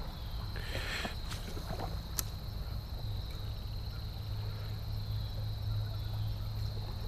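A steady high-pitched insect drone over quiet creekside background, with a brief rustle about a second in and a sharp click about two seconds in as a spinning rod and reel are handled.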